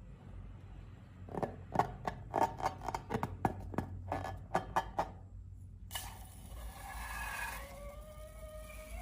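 Hands handling slime and long balloons: a run of sharp, irregular crackling clicks for about four seconds, then, starting suddenly about six seconds in, a rubbing hiss with squeaky sliding tones.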